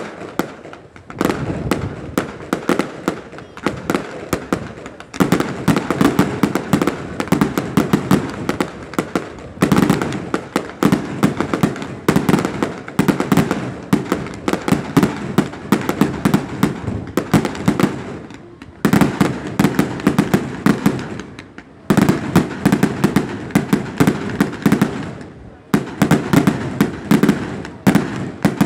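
Fireworks display: dense barrages of rapid bangs and crackling, coming in waves a few seconds long with short lulls between.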